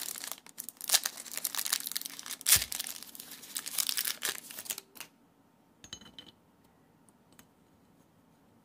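Clear plastic packaging of a new ball bearing crinkling and tearing as it is unwrapped, for about five seconds. A few light clicks follow about six seconds in.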